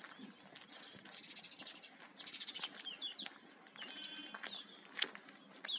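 Small songbirds chirping and singing, with short high calls throughout, a fast trill about two seconds in and another run of quick repeated notes near four seconds.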